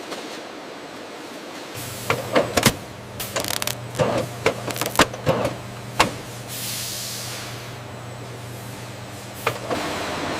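Bread packaging-line machinery running: a steady low hum with a quick run of mechanical clicks and clatters, then a rising hiss like a burst of air, and a few more clicks near the end.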